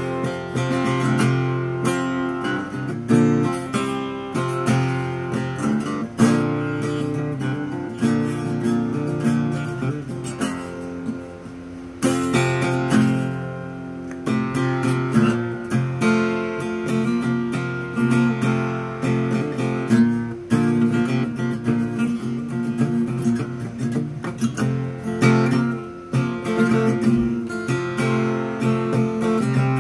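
Steel-string acoustic guitar flatpicked with a plectrum, playing a lead solo in G major mixed with strummed chords.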